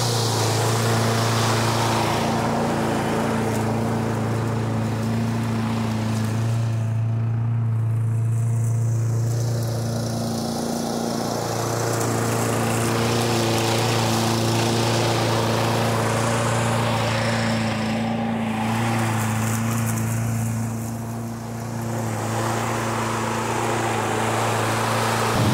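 Briggs & Stratton engine of a 2013 MTD Yard Machines 21-inch push mower running steadily after a full service, its pitch holding level throughout.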